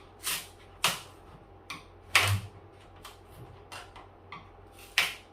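Irregular sharp clicks and knocks of an old rubber refrigerator door gasket being pried and pulled out of the door's plastic liner, about seven of them, the loudest about two seconds in and near the end.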